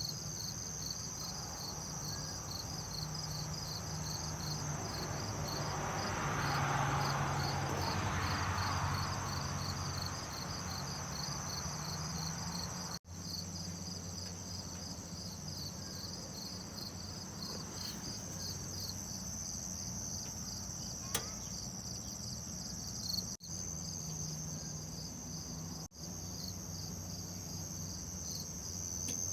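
Insects chirping in a steady, high-pitched, pulsing chorus. A swell of softer rushing noise rises and fades a few seconds in, under a low steady hum.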